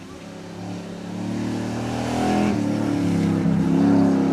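Hill-climb car's engine accelerating and growing louder as it approaches. It has a low note that rises through the revs, with a gear change about two and a half seconds in.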